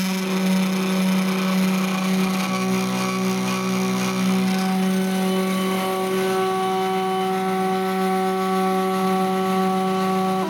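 Motors of a homemade CNC hot-wire foam cutter driving its threaded-rod axes, a steady pitched whine with several overtones. A lower second tone joins for about two seconds, starting about two and a half seconds in.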